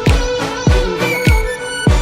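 Background music with a steady electronic beat: a deep kick drum about every 0.6 seconds under sustained synth tones and a melody.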